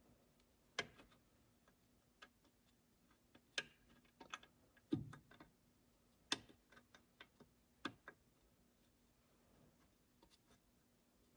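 Scattered sharp metallic clicks and knocks of hand tools and parts being handled while working at a bolt on a tractor's drive coupler, with a duller thud about five seconds in. A faint steady hum sits underneath.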